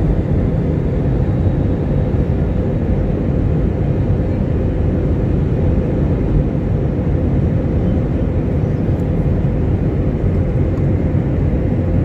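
Jet airliner cabin noise in flight: the steady rush of the engines and airflow heard from a window seat, heaviest in the low end, with a faint steady hum.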